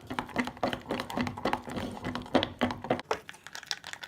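A utensil knocking and scraping against a mixing bowl while stirring slime mixture, in repeated irregular taps, a few each second, thinning out near the end.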